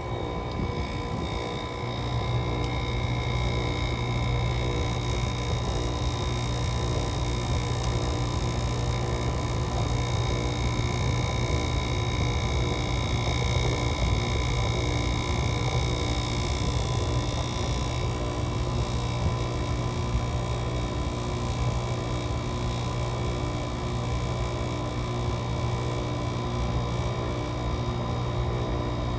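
GE 5050 BTU window air conditioner running just after a cold start in 15°F weather: its Samsung rotary compressor and fan give a steady low hum with a thin whine above it. It gets a little louder about two seconds in, then holds steady.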